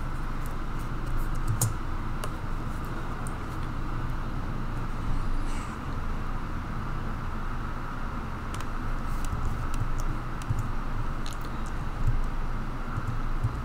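Steady electrical hum and hiss of a desk recording setup, with a few faint, scattered clicks at the computer.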